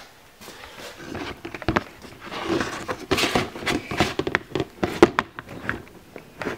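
Handling noise from a camera being carried and set in place: irregular clicks, knocks and rustling, with no engine cranking.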